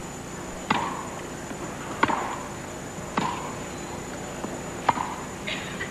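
Tennis rally on grass: four sharp racket strikes of the ball, a second or so apart, over a steady faint crowd-and-broadcast background.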